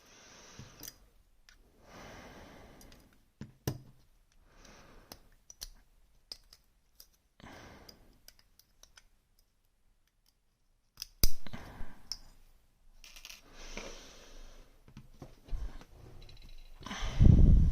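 Light metallic clicks and rustling handling noise as a Rosengrens 32CK2 disc-detainer lock is taken apart by hand. A sharper click comes about two-thirds through, and a heavier thump near the end.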